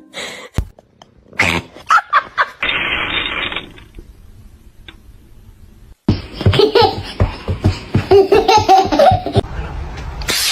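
A person laughing in a rapid string of bursts. The loudest and steadiest run of laughter starts abruptly about six seconds in, after a brief silence; before that come a few short, scattered sounds.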